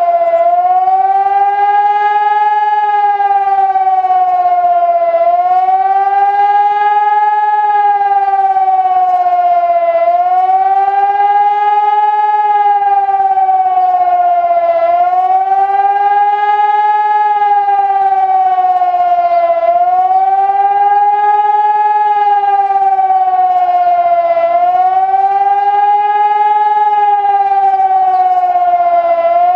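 Hörmann ECN 600 electronic civil-defence siren sounding loud and continuous. Its pitch rises and falls in a wail, one swell about every five seconds: the rising-and-falling public warning signal.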